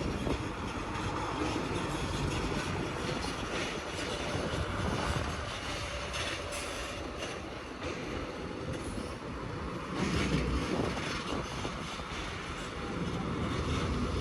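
Heavy construction machinery running and working, a steady mechanical din that grows louder about ten seconds in.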